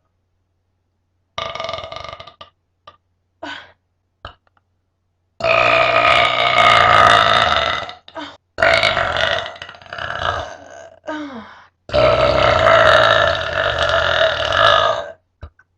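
A person burping: a few short burps, then three long, loud drawn-out burps, each lasting two to three seconds, one ending in a falling pitch.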